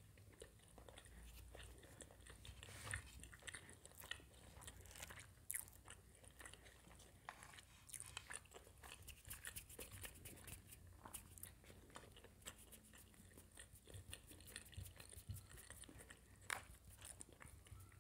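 Quiet, close-miked chewing of a mouthful of food, made up of many small wet mouth clicks scattered throughout.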